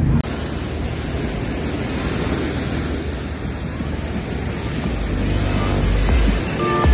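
Small waves washing onto a sandy shore, a steady rush of surf, with wind rumbling on the microphone that grows stronger near the end.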